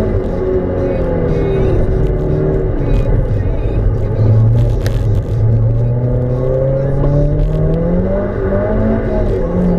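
Mazda MX-5's four-cylinder engine heard from inside the cabin, easing off as the car slows, then pulling hard with the pitch rising steadily for several seconds. There is a brief dip in level about five seconds in, and scattered light ticks run over the engine sound.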